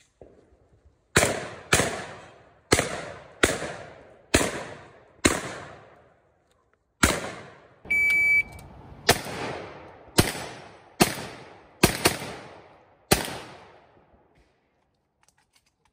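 A competition shotgun fired twelve times in quick strings with short pauses between. Each shot rings out and dies away over about a second.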